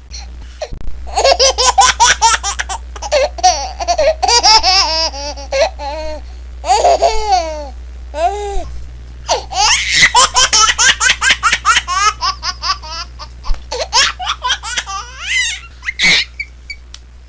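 A baby laughing in long runs of quick, high-pitched giggles, with short breaths and pauses between them.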